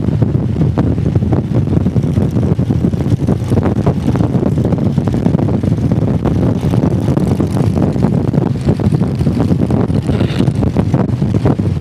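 Motorcycle riding along at speed: engine running steadily under heavy wind buffeting on the microphone.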